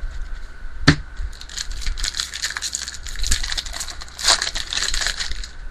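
A baseball card pack wrapper being torn open and crinkled by hand. There is a sharp rip about a second in, then several seconds of crackling rustle, louder past the four-second mark.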